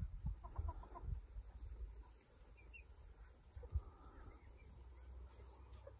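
Chickens clucking softly: a quick run of short clucks in the first second, then a few faint calls and a single dull thump.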